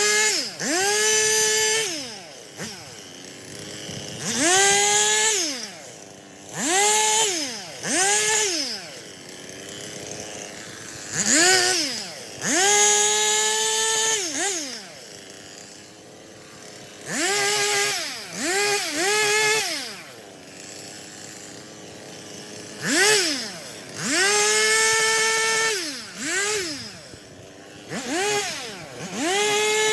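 Stihl chainsaw throttled up again and again, each burst rising to full revs, holding briefly as it cuts, then dropping back to idle; about a dozen bursts, some short and in quick succession, the longest about three seconds.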